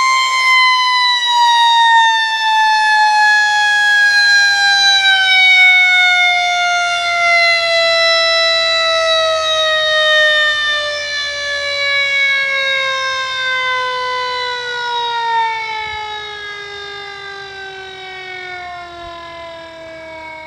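Mechanical warning siren winding down: its single wailing tone holds for about a second, then slides slowly and steadily lower in pitch, growing fainter over the last few seconds as the rotor coasts to a stop.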